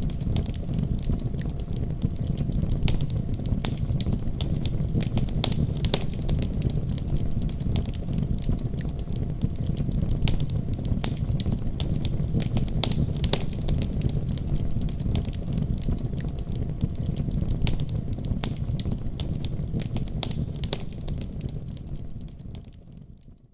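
Wood fire burning in a fireplace: a steady low rumble of flames with frequent sharp crackles and pops. The sound fades out near the end.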